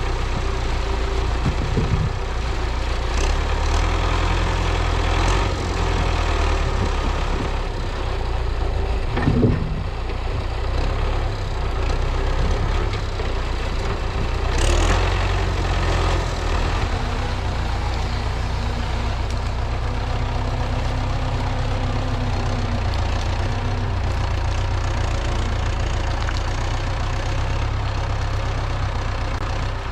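MTZ-82 tractor's diesel engine running steadily at a low rumble, with a couple of short knocks partway through.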